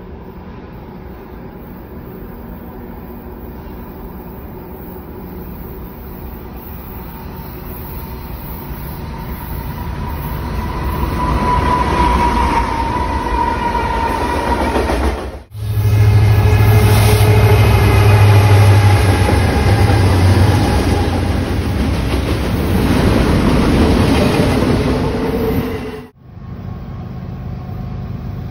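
Canadian National diesel freight train approaching and passing close by: the locomotive's engine grows steadily louder, then runs loud with a deep hum as the train goes past. The sound breaks off suddenly about halfway and again near the end, where a quieter, more distant train is heard.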